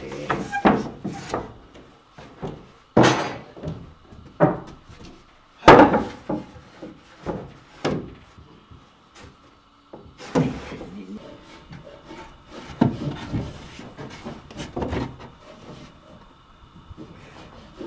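Irregular wooden knocks and bangs: a dozen or so separate hits with uneven pauses between them, the loudest about six seconds in.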